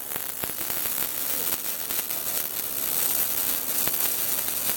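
Electric arc welding: a steady crackling hiss of the arc, with scattered faint clicks.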